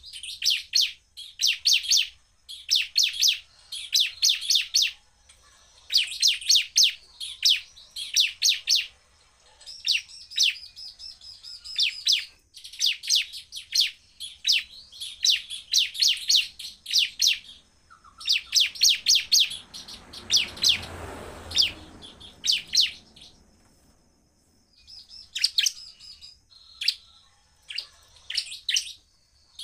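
Bar-winged prinia (ciblek) singing in rapid-fire runs of sharp, high notes, each run about a second long and repeated after short pauses.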